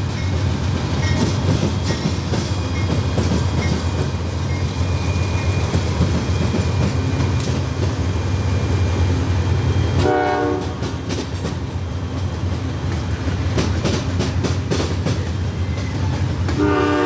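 Freight train with diesel locomotives passing: a steady low engine rumble with wheel clatter, a short multi-note horn blast about ten seconds in, and another horn blast starting near the end.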